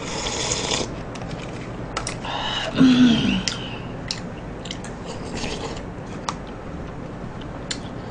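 Eating bingsu (Korean shaved ice): a slurp from a plastic cup at the start, then a wooden spoon clicking and scraping in the cup, with soft chewing. A brief vocal sound comes about three seconds in.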